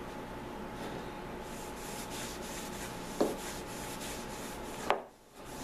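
Cloth rag rubbing in repeated wiping strokes, cleaning spilled linseed oil off a metal oil can. There is a light knock about three seconds in and a sharper click near the end.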